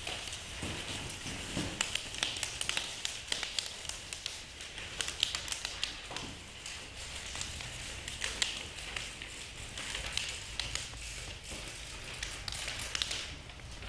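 Several people rustling and crumpling sheets of paper and newspaper: a dense, irregular crackle of small clicks.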